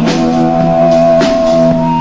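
Live rock band playing: electric guitar and electric bass holding long notes over a drum kit, with drum hits at the start and again about halfway through.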